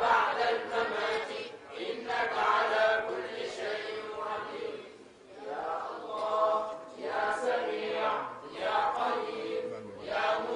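A group of voices chanting in unison in repeated phrases over a steady held note: Sufi devotional chanting.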